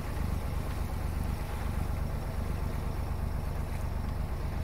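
A sailboat's inboard diesel engine running steadily under way: a low, even drone with a fast regular pulse.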